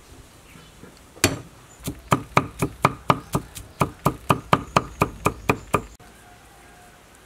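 A cleaver chopping garlic on a thick wooden chopping board. One knock comes about a second in, then a steady run of about nineteen quick chops, roughly five a second, which stops about six seconds in.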